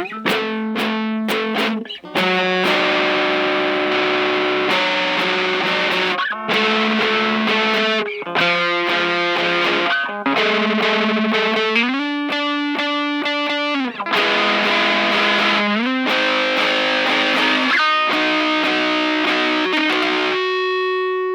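Distorted electric guitar playing an instrumental passage of chords that change about every two seconds, with a slide up in pitch about twelve seconds in, ending on a single held note.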